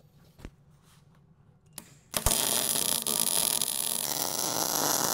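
Arc welder striking an arc and running a tack weld for about three seconds on a steel pipe brace against a fence corner post, a steady crackle that starts with a sharp click and cuts off suddenly. A small knock comes earlier, about half a second in.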